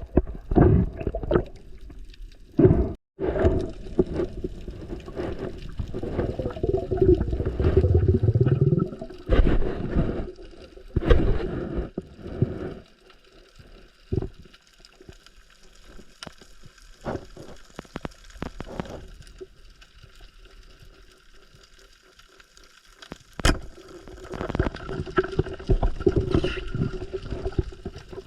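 Sea water sloshing and gurgling, with scattered sharp knocks; it quietens for several seconds in the middle and picks up again near the end.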